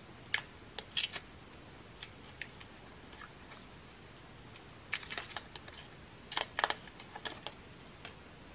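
Crinkling and sharp clicks of a protective wrap being peeled by hand off an Apple Watch case. The clicks come in short clusters: a few about a second in, then two busier bursts past the middle.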